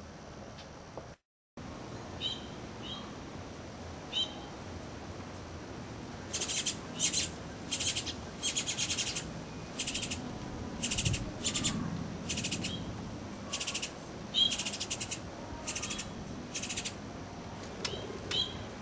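Goldfinch nestlings begging in the nest: about a dozen short bursts of rapid, buzzy high-pitched calls, with a few single short chirps before and after.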